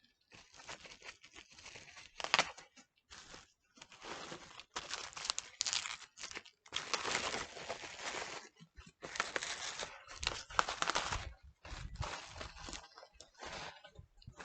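Packing material crinkling and tearing in irregular bursts as a cardboard mystery box of comic books is unpacked, with a few low thumps of handling near the end.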